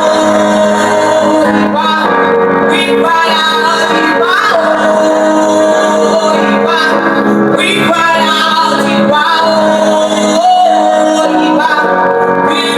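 Worship music: a voice singing long, held notes over sustained chords.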